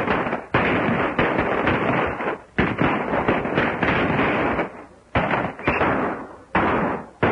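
Gunfire in a film shootout: a string of sharp shots, each trailing a long echoing tail. They come close together at first, then at gaps of a second or two.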